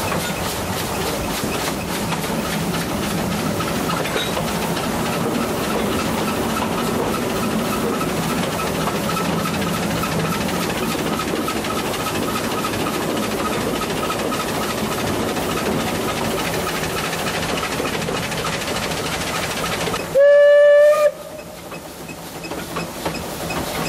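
ÖBB class 298 narrow-gauge steam train running, a steady rolling noise with an even rhythmic beat. About twenty seconds in, the steam locomotive's whistle gives one loud blast about a second long, and the running noise is quieter after it.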